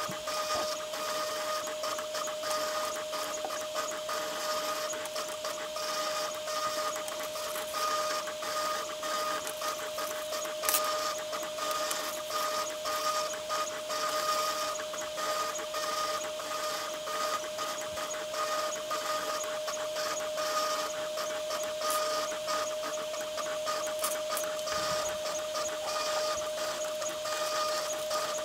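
Root 3 Lite CNC router milling a copper-clad PCB: a steady whine from the spindle over fast, irregular ticking and scratching from the cutter and motors, with one sharper click near the middle.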